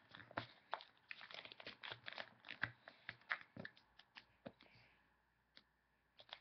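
A sheet of paper being folded and creased by hand against a tabletop: a quick run of soft crinkles and small taps for about four seconds, then only an occasional tick.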